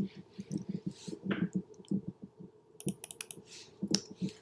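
Computer keyboard being typed on: irregular short key taps, with a busier cluster of taps about three seconds in, as numbers are entered into a field.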